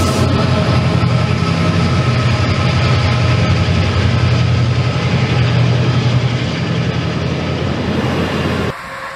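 Intermodal container freight train passing at speed close by: a steady low locomotive drone over the rumble of wheels and wagons. Near the end the sound drops suddenly to a quieter train sound.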